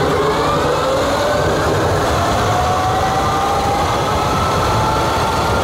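Electric go-kart with a Surron Storm Bee motor accelerating flat out on a top speed run. The drivetrain whine climbs steadily in pitch as the speed rises from about 18 to over 50 mph, over a steady rush of road and wind noise.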